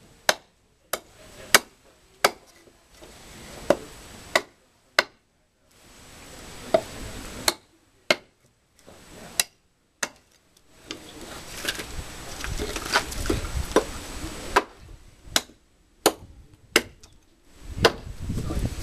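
A heavy, hand-forged Big Bear chopping knife, about 3/16 inch thick with a 9 to 10 inch blade, striking into a piece of firewood again and again. There are about twenty sharp wooden chops, mostly half a second to a second apart, with a few short pauses.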